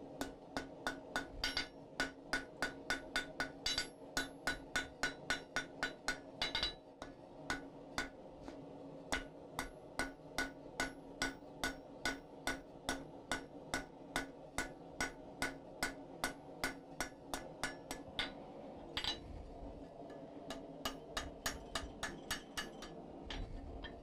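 Cross-peen hammer striking red-hot steel bar on an anvil, drawing a taper on the barb of a forge-welded hook: a fast, even run of sharp blows, about three to four a second, over a steady low hum. The blows pause briefly about three-quarters of the way through, then pick up again.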